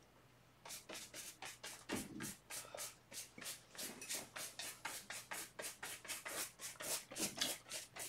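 Paintbrush scrubbing acrylic paint across a canvas in quick back-and-forth strokes, about four a second, working the colour smooth. The strokes start a little under a second in.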